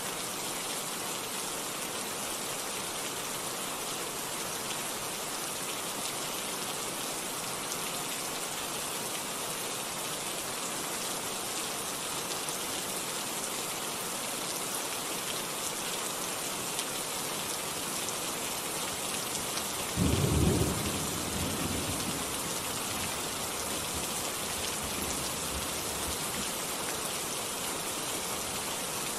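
Steady rain falling. About two-thirds of the way through, a sudden clap of thunder breaks in, the loudest sound here, and rumbles off over a second or two.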